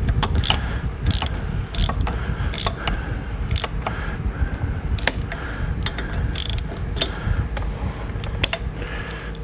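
Torque wrench ratcheting as it tightens handlebar clamp bolts to 16 foot-pounds: repeated sharp ratchet clicks in short runs with the wrench's swings.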